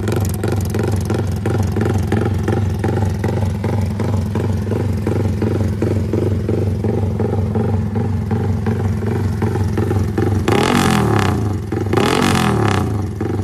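Yamaha Y15ZR (MX King) single-cylinder four-stroke engine breathing through an aftermarket exhaust, running a lumpy, evenly pulsing 'rumble idle'. About ten seconds in, the throttle is blipped twice, and each time the revs climb and fall back.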